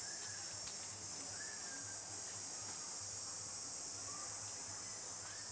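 Steady high-pitched chorus of forest insects, a continuous shrill drone, with a few faint short calls now and then.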